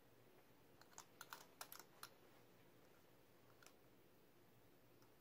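Faint clicks of a combination padlock's dial being turned by hand: a quick run of small clicks about a second in and a single click later on.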